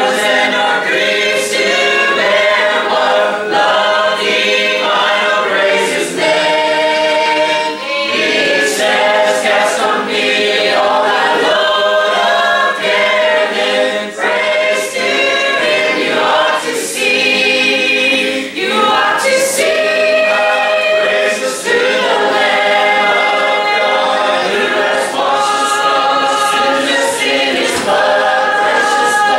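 Mixed congregation of men's and women's voices singing a hymn a cappella, without instruments. Sustained chords move from one to the next every second or two, with no break.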